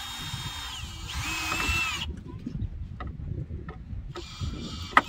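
Power drill driving a screw into a wooden board to start it. The motor whines steadily, drops in pitch about a second in, and stops about two seconds in, then runs again briefly near the end.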